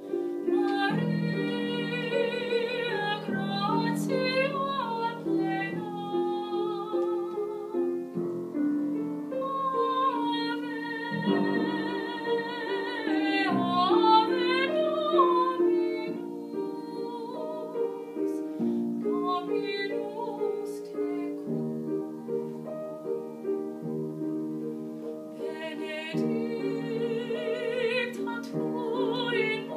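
A woman singing with a wide vibrato, accompanied by piano chords. The voice pauses several times while the piano plays on.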